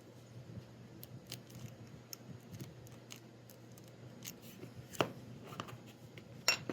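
Scattered small clicks and snips of support material being picked and pulled off a flexible TPU 3D print, with two sharper snaps about five seconds in and near the end.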